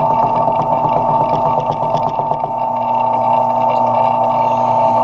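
Metal lathe running steadily, its drive giving a constant high whine over a lower hum, while small aluminum parts are being cut off. The sound grows slightly louder about halfway through.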